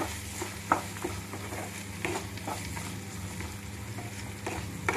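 Onion, tomato and fresh peas sizzling in hot mustard oil in a non-stick kadhai while a spatula stirs them, scraping and knocking against the pan about every half second. A steady low hum runs underneath.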